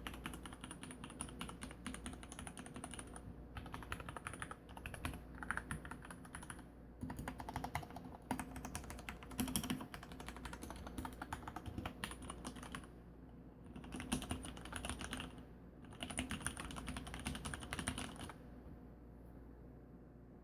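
Mechanical keyboard with Cherry MX Black linear switches (lubed sliders, 55g springs) being typed on quickly in bursts with short pauses. The typing stops about 18 seconds in.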